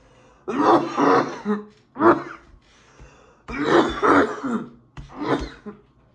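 A man coughing hard in four or five rough fits with throat clearing, set off by inhaling from a cannabis wax vape pen.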